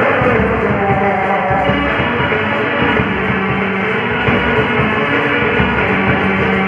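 Background music, steady and unbroken.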